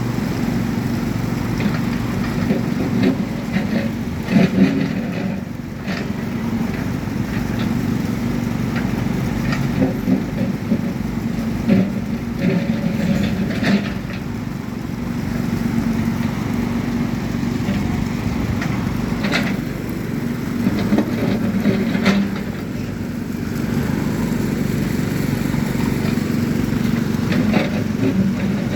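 A water tanker truck's engine running steadily, with a low hum and a few short clicks and knocks.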